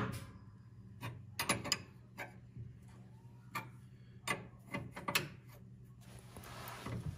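Steel wrenches clicking and tapping on a hydraulic line fitting as it is broken loose, a dozen or so sharp metallic clicks. Near the end comes a short hiss as pressurised hydraulic fluid escapes from the loosened fitting.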